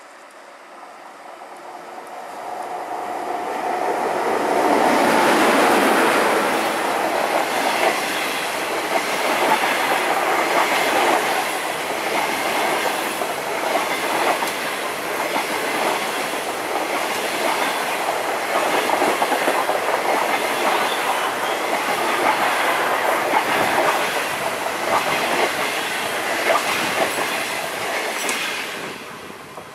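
HXD3C electric locomotive passing close by with a long train of passenger coaches. The noise builds over the first few seconds and peaks as the locomotive goes by. It then holds steady as the coaches stream past, their wheels clicking over the rail joints, and fades near the end.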